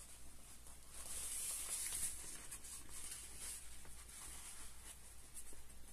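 Light nylon fabric rustling faintly as it is handled and lifted, with a few soft ticks.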